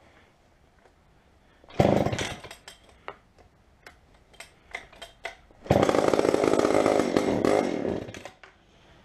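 McCulloch Pro Mac 700 two-stroke chainsaw engine being started: it fires briefly about two seconds in and dies away, several clicks and knocks follow, then it fires again and runs for about two seconds before dying out. It will not keep running.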